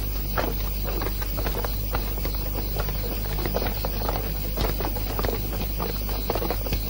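Steady hiss and low mains hum of an old film soundtrack, with scattered faint clicks.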